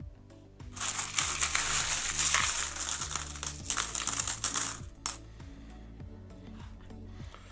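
Loose metal coins clinking and jingling together as they are stirred in a tub, a dense rattle lasting about four seconds and starting just under a second in. Soft background music runs underneath.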